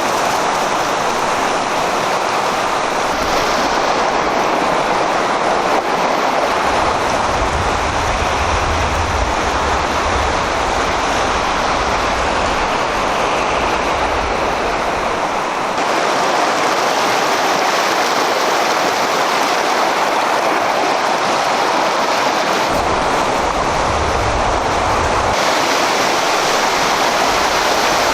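The Sandy River rushing in high water, a steady, loud roar of water, with a low rumble coming and going.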